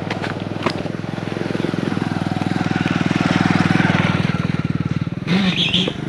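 Motorbike engine running under way, its firing pulses steady as it rides, growing louder toward the middle and easing off again. A short voice sound comes near the end.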